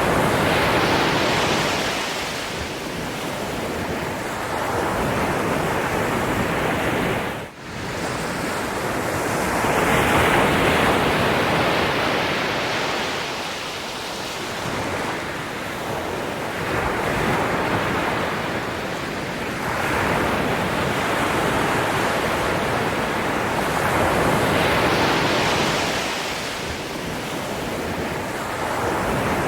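Ocean surf washing ashore, a continuous rush of water that swells and ebbs as each wave breaks and draws back every few seconds. A brief sudden dropout cuts the sound for an instant about seven seconds in.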